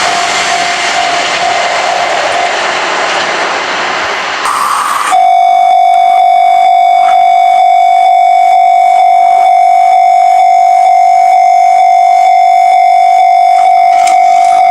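An Izuhakone Railway Sunzu Line train running past on the rails, a dense rushing rumble. About five seconds in, a level-crossing warning bell starts abruptly and rings loudly, a single ringing tone that repeats in a steady rhythm.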